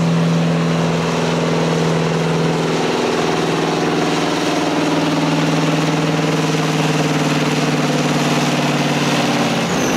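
V8 engine of a John Deere 6030 pulling tractor running steadily at idle, its pitch shifting a little a few seconds in and again near the end.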